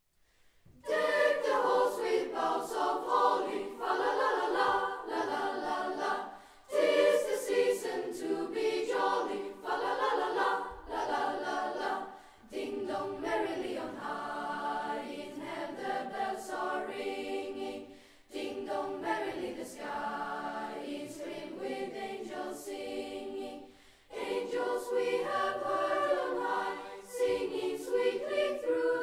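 A school youth choir singing a medley of Christmas carols, in phrases of about six seconds with short breaks between them.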